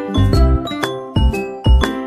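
Background music: a tune of quick ringing notes over a low beat about twice a second.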